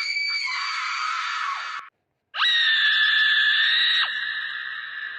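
Two long, shrill, high-pitched screams, each held at a steady pitch for about two seconds, with a short break between them. The second is louder at first and then drops in level before it cuts off.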